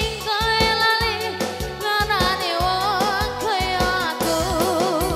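Upbeat dance music with a singer's wavering melody over bass and a steady drum beat.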